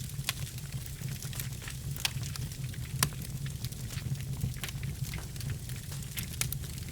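Wood fire burning in a fireplace: logs crackling with frequent sharp pops, the loudest about three seconds in, over a steady low rumble of the flames.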